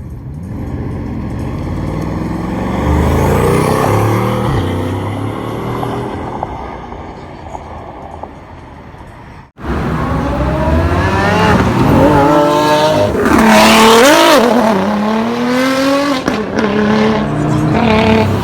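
Supercar engines: one grows louder over a few seconds and then fades. After an abrupt cut, another is revved hard, its pitch rising and falling sharply several times.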